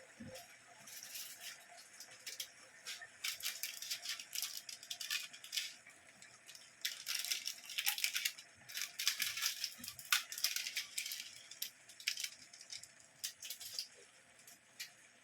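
Irregular clattering and scraping, like kitchen utensils working in a pan or bowl, coming in busy bursts with short pauses, busiest in the middle.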